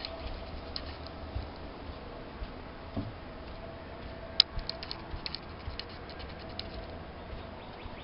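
Footsteps on a wooden boardwalk, soft thumps, with sharp clicks and ticks over them, the loudest a little past halfway, followed by a quick run of ticks, over a faint steady hum.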